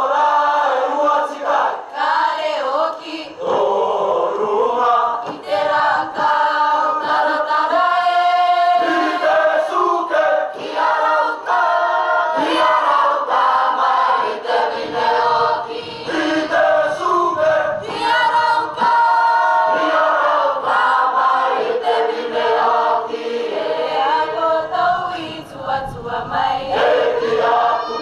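A Cook Islands performing group of young men and women singing together in chorus, with long held notes twice along the way.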